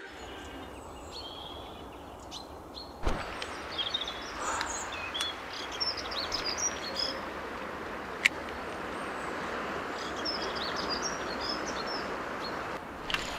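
Mountain river rushing steadily, with small birds chirping and singing over it. A sharp click about three seconds in, after which the rushing is louder.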